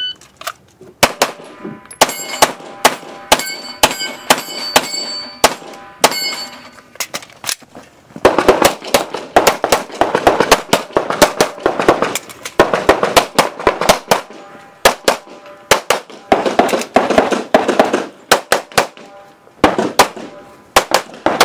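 A shot timer's start beep, then a handgun fired in quick strings of shots with short pauses between them, running through a practical-shooting stage. In the first several seconds the hit steel targets ring after the shots.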